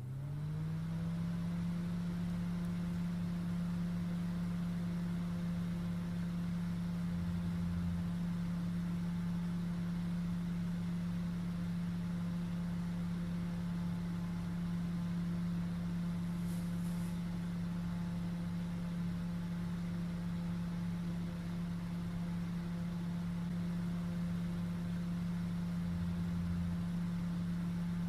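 220-volt mains fan with an aluminium housing and plastic impeller finishing its spin-up in the first moment, then running at constant speed with a steady hum.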